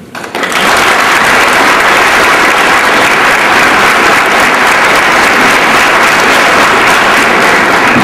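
Audience applauding, rising sharply about half a second in and then holding steady and loud.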